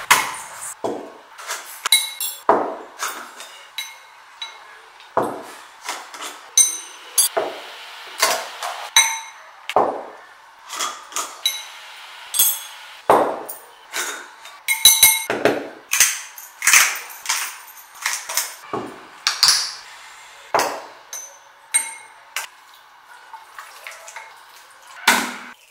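Repeated sharp clinks and taps of a spoon on glass jars and a glass bowl, some ringing briefly, mixed with wet splashes and squelches of raw chicken being washed and mixed by hand.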